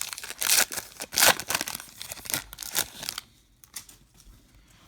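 Foil wrapper of a trading card pack being torn open and crinkled, a run of papery rustling tears that stops about three seconds in.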